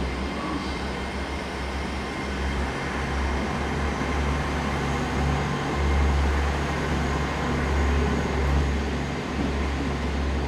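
Diesel train engines running in the station, a steady low rumble with a low engine drone.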